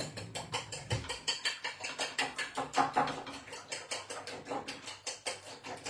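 A fork beating raw eggs in a ceramic plate, clicking rapidly and steadily against the plate at about six or seven strokes a second.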